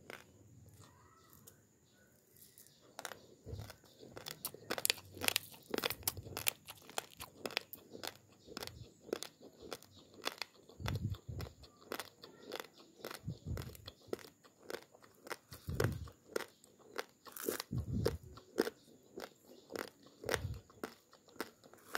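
Raw basmati rice grains being chewed: a dense run of sharp crunches and cracks with low thuds among them. It starts about three seconds in, after a short quiet.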